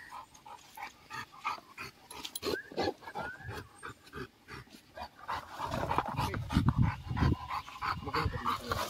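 American bully dogs at play, a run of short rough breaths and noises, louder from about five seconds in.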